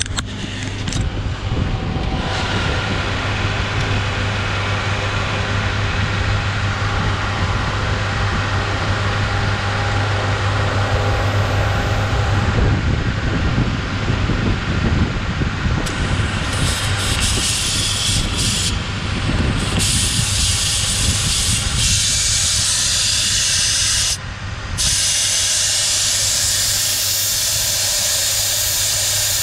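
Air hissing out of a car tyre through the bleed valve of a dial tyre-deflator gauge held on the valve stem, lowering the pressure for off-road driving. The hiss gets loud about halfway in and stops briefly a few times, over a steady low hum.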